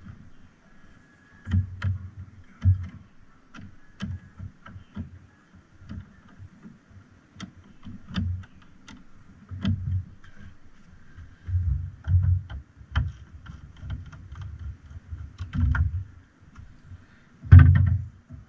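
Irregular clicks and dull knocks of a screwdriver and hand working the hose clamp on an engine's air intake tube, with a louder thump near the end.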